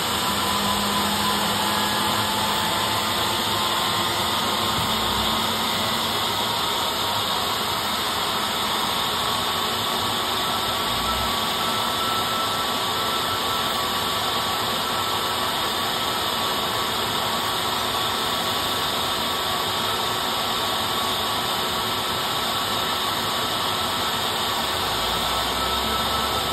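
Airliner turbofan engine being dry-motored by its starter, turning without fuel or ignition: a steady rushing noise with faint whining tones.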